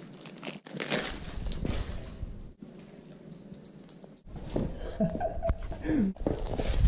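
Applehead chihuahua's claws clicking and scrabbling on a tile floor as it drags and tussles with a stuffed fox toy, in irregular spells of scuffling.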